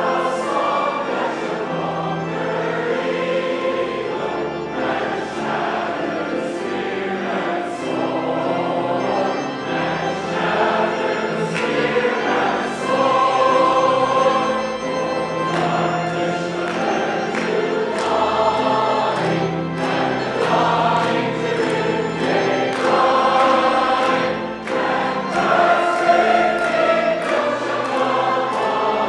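Church choir singing, with notes held about a second at a time.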